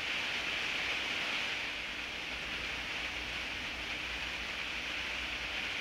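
Steady hiss with a faint low hum underneath: room tone with no distinct event.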